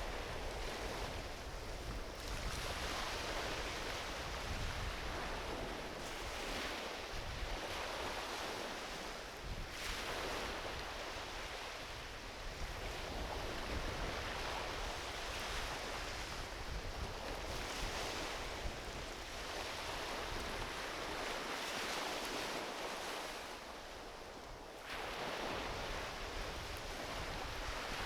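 Gentle ocean waves washing onto a beach, swelling and easing every few seconds, the last surge rising sharply near the end, over a steady low rumble.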